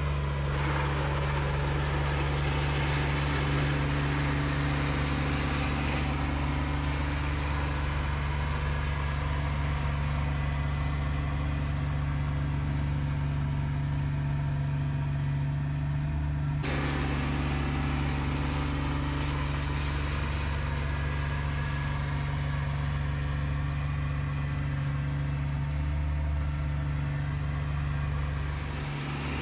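Kubota BX2230D compact tractor's three-cylinder diesel engine running steadily at an even pitch. Its tone changes abruptly about halfway through.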